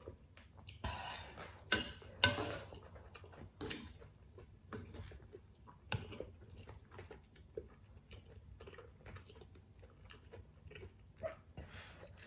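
A person chewing ramen noodles and seafood close to the microphone, with steady soft wet clicks of chewing. A few louder bursts come in the first three seconds.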